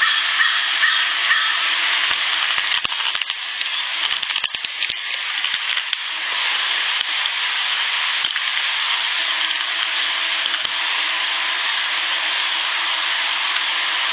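Steady high hiss with a faint low buzz that drops out for a few seconds and returns, and a scatter of soft clicks a few seconds in. It is a night field recording from an unattended recorder, and the recordist takes the buzz for an unknown large insect at the recorder.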